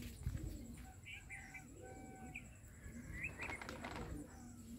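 Faint birds chirping and calling in the background: short high chirps and a few longer held notes, scattered through the moment.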